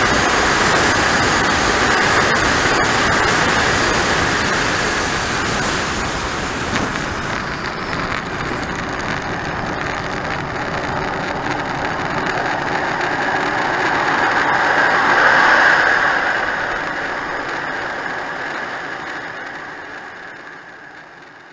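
Onboard sound of a radio-controlled model jet rolling along a grass runway: a steady rushing noise from its TJ74 model turbine engine and the ride over the grass, heard close up through the onboard camera's microphone. It swells about fifteen seconds in, then fades away over the last few seconds.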